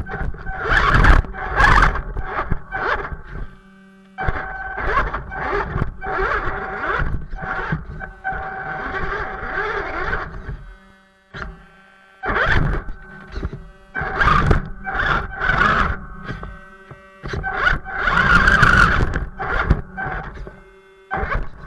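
Remote-control crawler truck driven in short throttle bursts: an electric motor and gear whine rising and falling with each burst, with tyres scraping and crunching over the ground.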